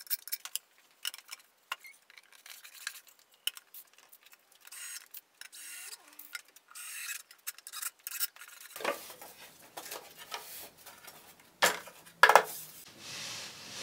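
Clicks, taps and rubbing as wooden cabinet panels are handled and fitted together, with three louder wooden knocks in the last five seconds.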